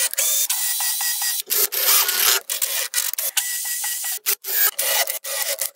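Cordless drill boring into plywood, the bit rasping through the wood over a faint motor whine, stopping and starting several times with sudden breaks.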